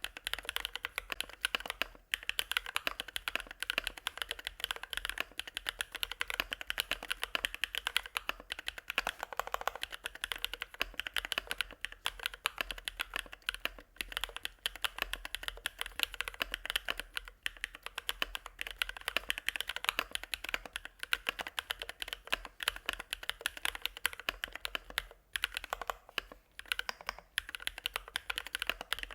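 Fast, continuous typing on a mechanical keyboard with hand-lubed Bsun Sunset Yellow linear switches, giving a mid-to-low-pitched keystroke sound. The run of keystrokes breaks for a moment a few times.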